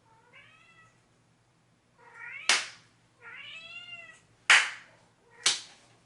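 A house cat meowing three times, each call rising then falling in pitch. Three sharp clicks or knocks come in between, the loudest about four and a half seconds in.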